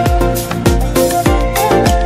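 Background music with a steady beat of deep drum hits, about three a second, under held melodic notes.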